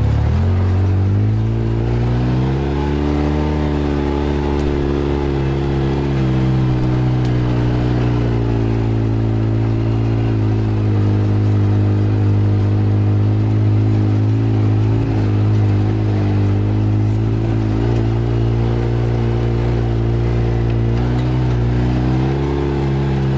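Polaris off-road vehicle engine running under steady throttle, its pitch rising over the first couple of seconds and then holding even, with small dips near the end.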